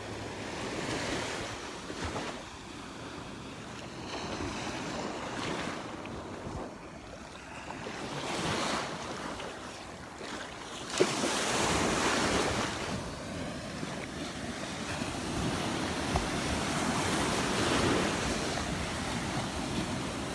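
Gulf of Mexico surf breaking and washing up the beach, swelling and fading every few seconds, with wind buffeting the microphone. A brief knock about eleven seconds in.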